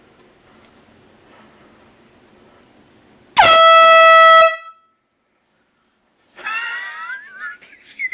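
Handheld marine air horn giving one very loud blast about a second long, steady in pitch and cutting off sharply. After a short silence, high wavering cries follow.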